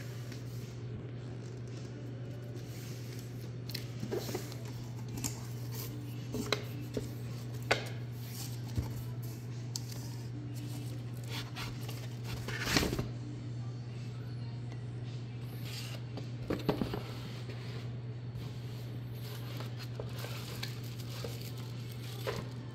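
Unboxing handling noises: scattered clicks, scrapes and crinkles of a cardboard box, a molded pulp tray and plastic-wrapped parts, over a steady low hum. The loudest rustle comes about 13 seconds in.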